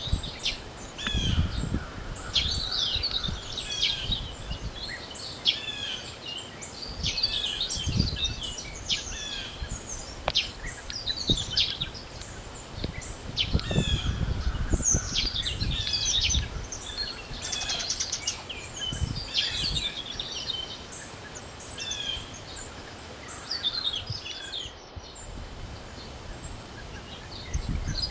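A spring chorus of several small songbirds chirping and trilling over one another without pause. Gusts of wind rumble low every few seconds.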